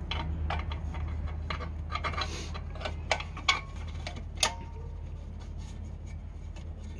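Light metallic clicks and clinks of the rear parking brake's bar and shoe hardware being fitted by hand, about a dozen in the first four and a half seconds, the sharpest a little past the middle. A steady low hum runs underneath.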